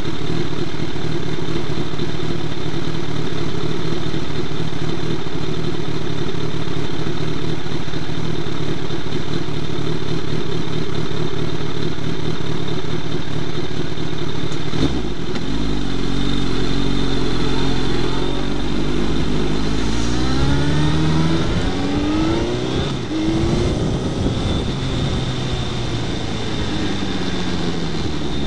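Suzuki Hayabusa's inline-four engine idling steadily, then revving up about halfway through as the bike pulls away, its pitch climbing and dropping back a few times as it shifts up through the gears.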